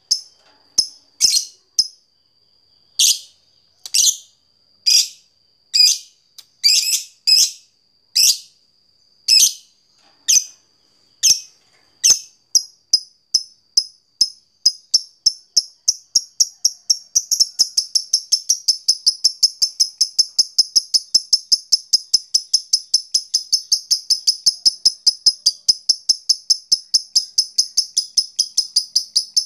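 Lovebird calling: loud, separate high chirps about once a second, then from about twelve seconds in a run of short ticks that speeds up into a long, unbroken rapid chatter, the long 'ngekek' of a fighter lovebird. A steady high tone runs underneath.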